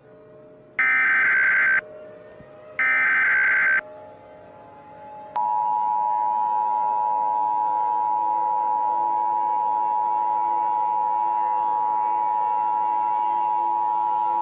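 Emergency Alert System broadcast signal: two short bursts of SAME digital header data, about a second each and a second apart, then about five seconds in the steady two-tone EAS attention signal starts and holds.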